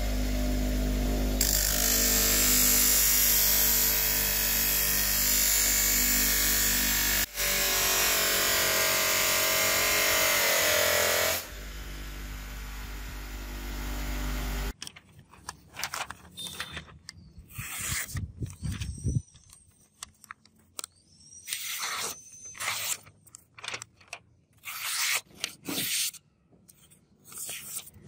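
DeWalt bench grinder running, then grinding a leaf-spring steel katana blade against its wheel in a loud, continuous rasp that breaks off briefly about seven seconds in and ends about eleven seconds in, leaving the motor running alone. About halfway through, short sharp swishes and rustles follow as the sharpened blade slices through sheets of paper.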